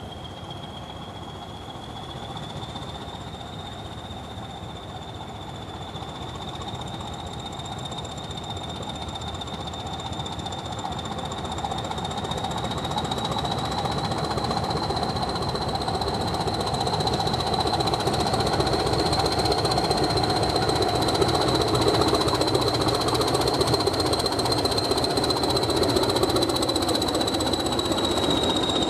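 BR Class 20 diesel locomotive approaching under power with its train and growing steadily louder. The engine is running with a high, steady turbocharger whistle that rises slightly in pitch, and wheel-on-rail noise builds in the later part.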